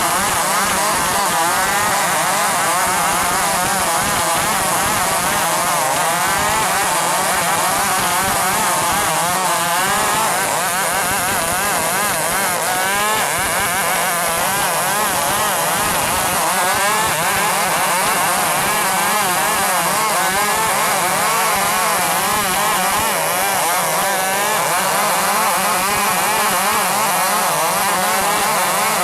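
A 105cc two-stroke chainsaw running hard under load as it rips through wood, its engine pitch wavering up and down without a break.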